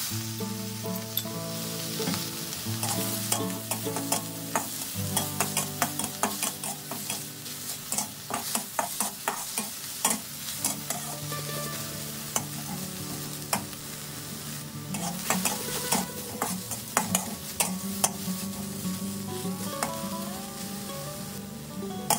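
Shrimp shells and heads sizzling in a hot wok while a metal spatula stirs and scrapes them, with frequent clicks of the spatula against the pan.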